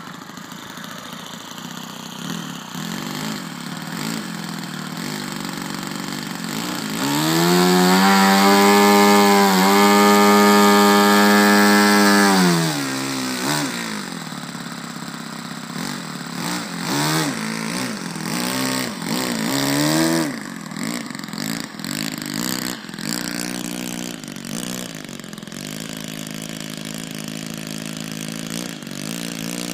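A radio-control model airplane's O.S. glow engine running. It idles, climbs to a much higher pitch about seven seconds in and holds there for about five seconds, drops back, is revved up and down several times, then settles to a steady idle.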